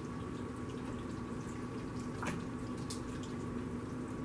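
Spoon stirring a soupy mix of stuffing, chicken and chicken broth in a plastic bowl: wet squelching and sloshing, with a couple of light clicks in the middle and a faint steady hum underneath.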